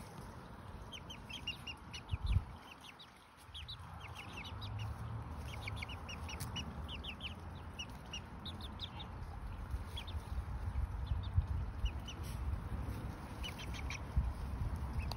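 Two-month-old Lemon Millefleur Sablepoot bantam chicks peeping, short high notes in quick runs. A low rumble runs underneath, with one thump about two seconds in.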